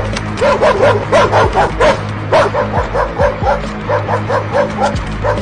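Rapid series of short, high dog-like yips, about three a second, over background music with steady low held notes.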